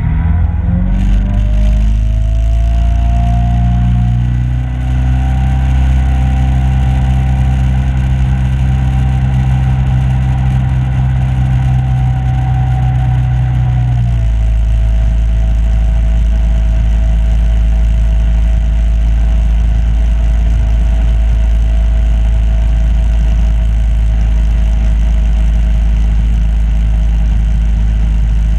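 Boat motor running under way as a loud, steady drone. Its pitch climbs in the first few seconds as it speeds up, holds, then settles slightly lower and deeper about halfway through.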